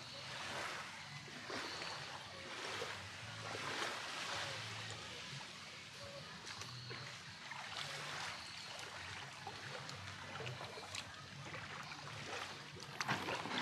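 Shallow seawater lapping and splashing gently around a moored outrigger boat and a person standing in it, with a brief cluster of sharp knocks near the end.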